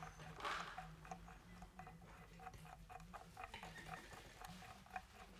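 Faint small clicks and scratches, a few a second, of a screwdriver hand-driving a 10-32 machine screw through an aluminium plate into a brass threaded insert, over a faint steady low hum.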